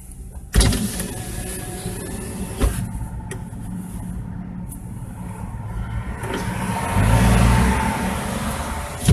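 Street traffic heard from inside a stopped car's cabin over a low engine hum: a sudden thump just over half a second in, then a passing car's noise swells and is loudest about seven to eight seconds in.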